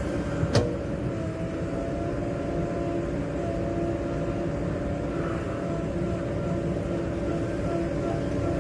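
Heavy diesel engine running steadily under a continuous rumble, with one sharp clank about half a second in.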